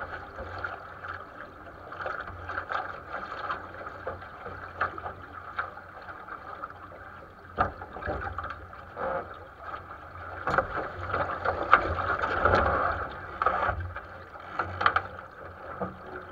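Water slapping and splashing against the hull of a 470 sailing dinghy under way, with a low wind rumble and frequent short knocks and slaps. The splashing grows busier and louder from about ten seconds in.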